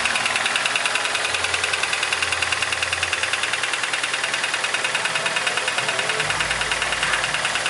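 Chevrolet Corsa 1.0 eight-valve engine idling with a rapid, even tapping from the valvetrain: the tappets are knocking, which the mechanic puts down to a worn camshaft.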